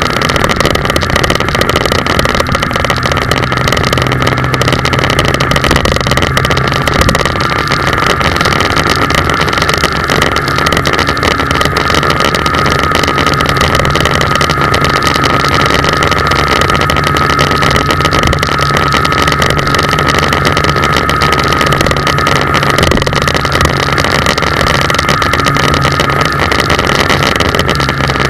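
Engine and road noise from a moving vehicle cruising steadily, heard from a camera mounted on it, with a steady whine running through it.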